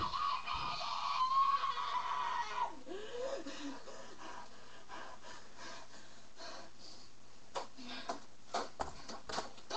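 A high-pitched wailing voice, its pitch bending up and down, for about the first three seconds. It is followed by quiet with a few scattered clicks near the end.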